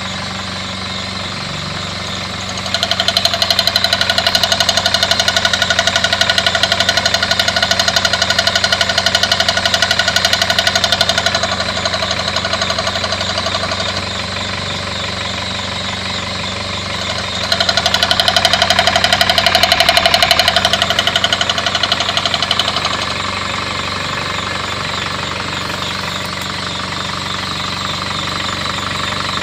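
Engine running with a rapid, steady knock. It grows louder for two stretches of several seconds, a few seconds in and again past the middle.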